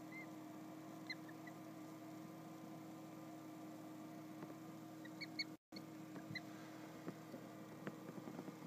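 Newly hatched goslings giving a few short, high, soft peeps, scattered and mostly just past halfway, over a steady low hum.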